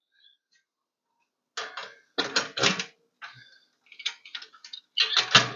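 Metal hardware clicking and knocking against an aluminium rack as parts are dropped and worked into their mounting holes. The irregular clicks begin about a second and a half in and are loudest near the end.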